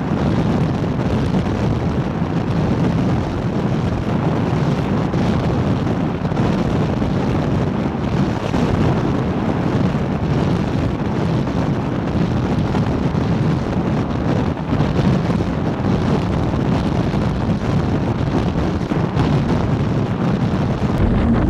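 Steady wind roar buffeting the microphone of a camera mounted low on the side of an MTI powerboat running at speed, mixed with the rush of water and the boat's running noise.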